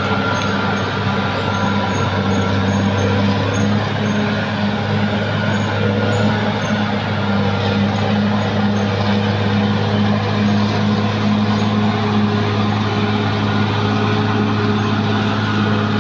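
Caterpillar D6R XL bulldozer's diesel engine running steadily.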